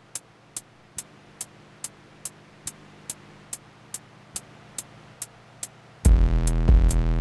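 Drum machine or sequencer playing a lone high tick, evenly about two and a half times a second. About six seconds in, a loud electronic beat with heavy bass comes in on the same tempo.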